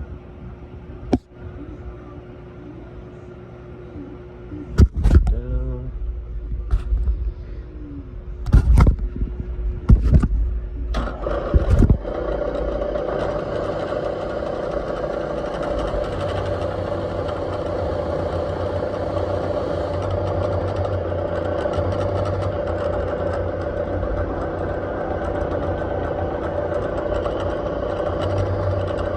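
Several loud metal clunks and knocks as the cylinder head and tooling are handled on the mill, then a shop machine starts up about eleven seconds in and runs with a steady whir.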